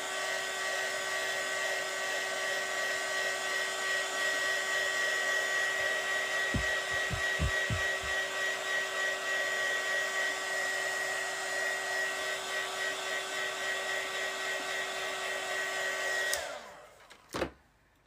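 Small handheld electric heat gun blowing steadily, a fan-motor whine over the rush of air, with a few soft low thumps midway. It is switched off about 16 seconds in and the motor whines down. A knock and a few light clicks follow near the end.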